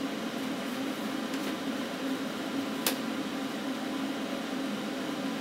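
The cooling fan of an AHP Alphacut 60 plasma cutter, powered on and idle, running with a steady hum and hiss. A single sharp click about three seconds in.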